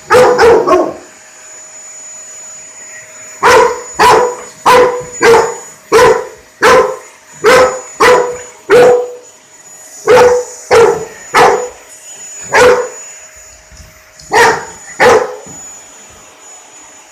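A dog barking again and again at a running vacuum cleaner, whose noise upsets it. There is a quick burst of barks at the start, then a long run of barks about two a second, with short pauses between groups. The vacuum's steady hum and high whine carry on underneath.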